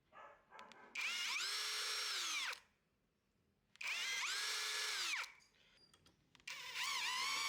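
Power drill running in three bursts of about a second and a half each; each time the motor whine climbs to speed, holds, then winds down, and the third burst starts near the end. A few light handling clicks come before the first.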